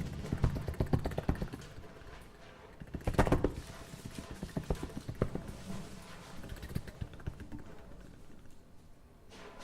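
Experimental piece for amplified bass flute and drum kit in a quiet passage: irregular taps, clicks and rustling, with a louder cluster of strikes about three seconds in, growing sparser toward the end.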